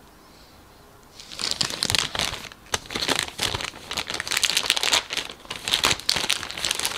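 Clear plastic model-kit parts bag crinkling as it is handled and opened, starting about a second in and going on as irregular crackles.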